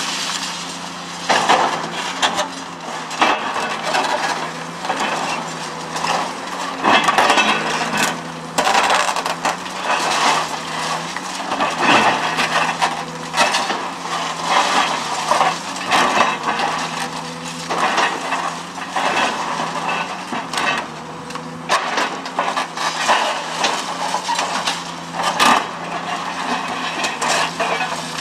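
Caterpillar 345C L excavator's pulverizer jaw crushing reinforced concrete: irregular crunching and cracking as the concrete breaks, with chunks and rubble clattering down. Under it runs the steady hum of the excavator's engine.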